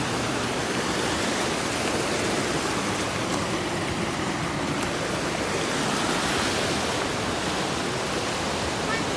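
Flooded river rushing over and around rocks, a steady rush of whitewater.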